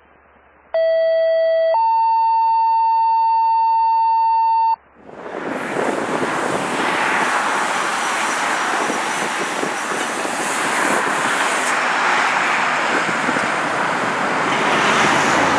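Two steady electronic tones, a lower one for about a second and then a higher one for about three seconds, stopping abruptly; then, about five seconds in, the loud, rough, steady noise of a 2000 Pierce Saber fire engine driving by on an emergency response.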